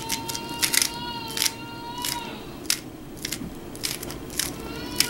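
An Aolong v2 3x3 speedcube being turned rapidly by hand: quick irregular plastic clicks and clacks as the layers snap through each turn, coming in short flurries while an algorithm is executed.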